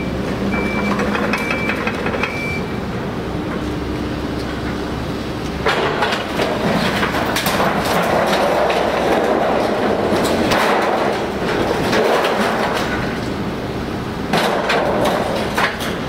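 Kobelco excavator engines running, with a few short high beeps at the start. From about six seconds in, demolition debris crunches, clatters and clanks as an excavator pulls at the wrecked building, swelling again near the end.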